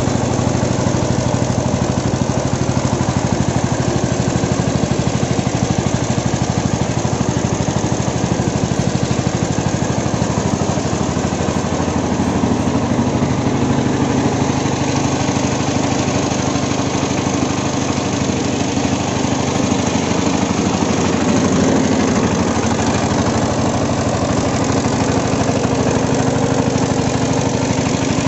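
An odong-odong's small engine running steadily at an even beat, driving a generator that powers the lights.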